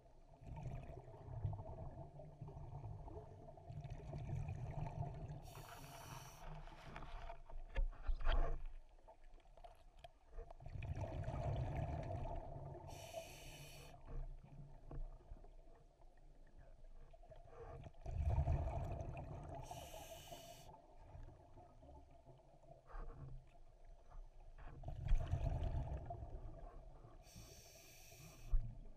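Scuba diver breathing through a regulator underwater: a rumbling rush of exhaled bubbles followed by the hiss of the demand valve on each inhalation, four slow breaths about seven seconds apart.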